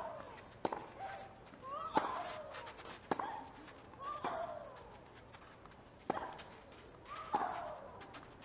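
Tennis rally: rackets strike the ball about every one to two seconds, and most shots come with a player's loud grunt that falls in pitch.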